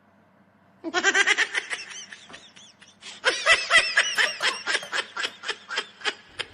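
A woman laughing in two long bouts of quick repeated laughs. The first starts about a second in, and the second, longer bout starts about three seconds in.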